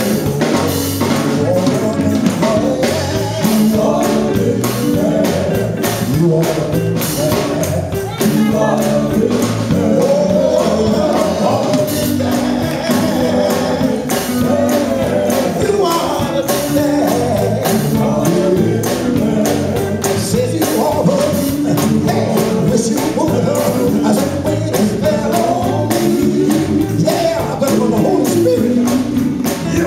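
Male gospel vocal group singing with amplified microphones: a lead voice over the group's backing harmonies, with a steady percussion beat running under the song.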